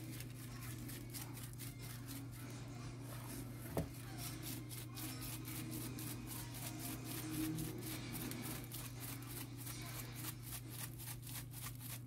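Spice shaker being shaken over a raw chicken: a fast, even run of dry rattling shakes, over a steady low electrical hum, with a single knock about four seconds in.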